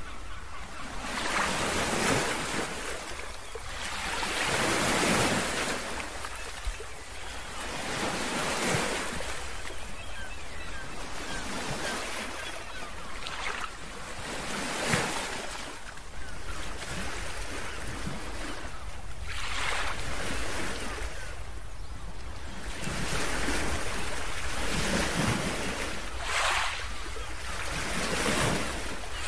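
Ocean surf breaking and washing over a rocky shore, swelling and falling back every few seconds. Wind rumbles steadily and low on the microphone underneath.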